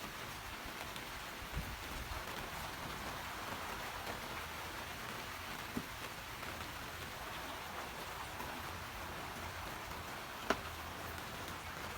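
Steady rainfall with scattered individual drops ticking, and one sharp, louder drip or tick near the end.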